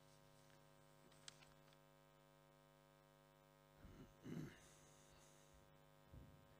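Near silence with a steady electrical mains hum, a faint click about a second in, and a few soft bumps around four seconds in and again near the end.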